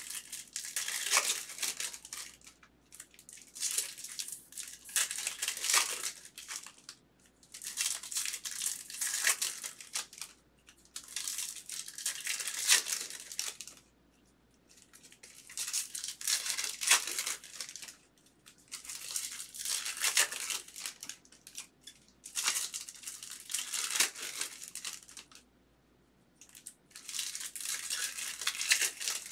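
Foil wrappers of 2023 Bowman jumbo baseball card packs being torn open and crinkled by hand, in about eight bursts of a couple of seconds each with short pauses between.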